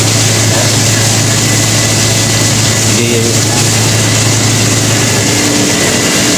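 Chicken deep-frying in a wok of oil over a lit LPG burner: a loud, steady sizzle and burner roar with a low hum under it. The hum drops away about five seconds in.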